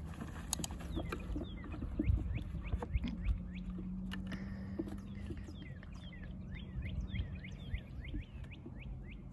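Wild birds chirping in quick short falling notes, busiest in the second half. Under them, a few low thumps about two and three seconds in, as a puppy scrambles on grass and into a wooden box, and a steady low hum in the middle.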